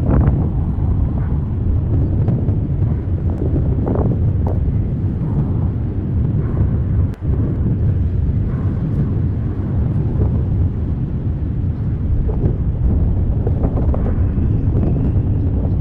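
Steady low rumbling noise with a brief dropout about seven seconds in.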